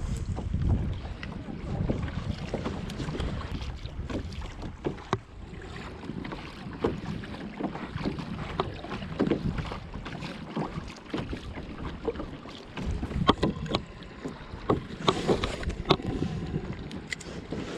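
Wind buffeting the microphone while small waves lap against a kayak's hull, with scattered sharp clicks and knocks that grow more frequent and louder near the end.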